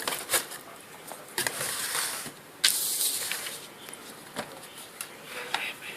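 Packaging being handled during an unboxing: scattered clicks and taps, with two longer rustles of about a second each, the second starting abruptly.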